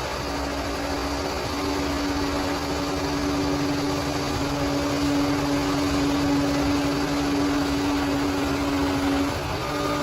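Bulldozer's diesel engine running steadily, with a steady whine over the engine noise that breaks off briefly near the end.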